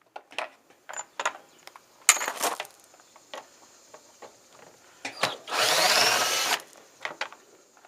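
Power drill briefly spinning, with a rising whine for about a second near the end, as it backs a screw out of a washing machine tub housing. Scattered clicks and knocks of handling the parts come before it.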